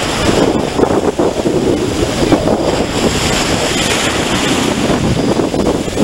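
Ocean surf breaking and foaming water washing in over sand, a steady loud rush, with wind buffeting the microphone.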